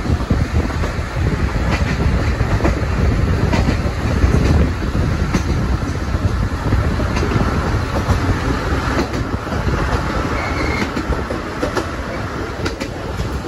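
Passenger train of 12-series coaches hauled by an ED75 electric locomotive running along the track: a steady low rumble with irregular clicks of the wheels crossing rail joints.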